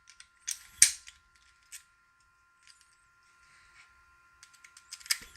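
Master Lock No. 1 padlock being raked and re-locked. There is one sharp metallic snap about a second in, then sparse faint ticks from the rake in the keyway, then a quick run of clicks near the end.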